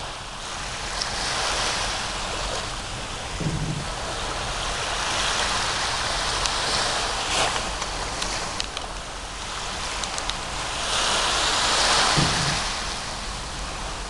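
Small sea waves washing onto a beach, swelling and fading every few seconds, the loudest wash a little before the end.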